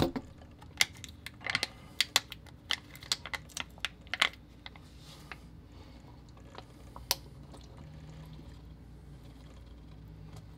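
Thin plastic food cup clicking and crackling as chunky wet dog food is scraped and squeezed out of it into a bowl, with a wet pour of broth. The clicks come thick and fast for about four seconds, then one more near seven seconds over a low steady hum.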